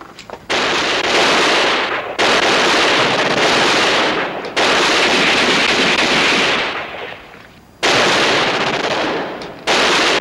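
Long bursts of machine-gun fire, five in a row with short breaks between them, each lasting one to three seconds.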